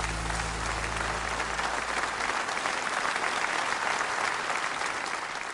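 Audience applauding at the close of a song, the last low note of the accompaniment dying away about two seconds in. The applause fades out near the end.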